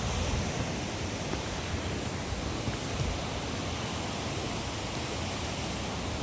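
Steady rush of falling water, an even noise with no breaks or distinct events.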